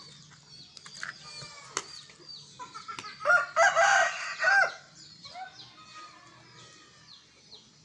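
A rooster crowing loudly about three seconds in, over small birds chirping.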